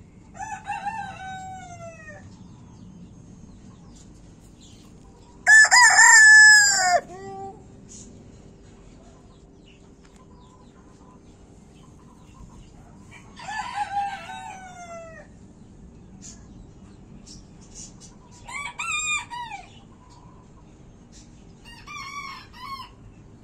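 Gold Silkie rooster crowing five times, each crow a second or two long and a few seconds apart; the second crow, about six seconds in, is much louder than the rest.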